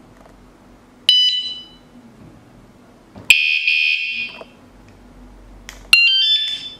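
Electronic anti-theft bike alarm sounding in three short, shrill bursts: one about a second in, a longer one of about a second a little past the three-second mark, and a last one near the end whose tones step in pitch.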